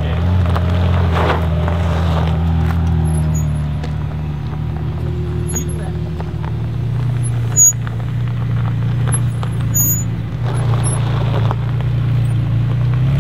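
McLaren 720S twin-turbo V8 running at idle and low revs as the car rolls off slowly, a steady low engine note with no hard acceleration. A short sharp click stands out about seven and a half seconds in.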